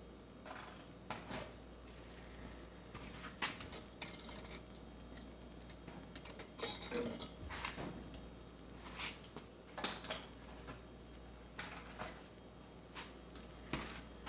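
Scattered light metallic clicks and clinks of small steel parts being handled: valve keepers, retainers and springs being taken off a cylinder head with a drill press used as a valve spring compressor. A denser cluster of clinks comes about halfway through.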